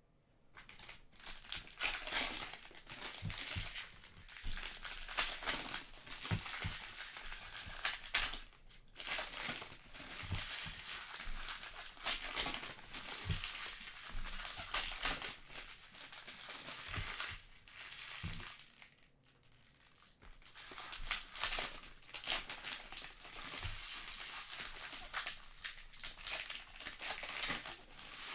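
Plastic wrapping and foil card packs crinkling and crackling as trading-card hobby boxes and packs are torn open and handled, with a short lull about two-thirds of the way through.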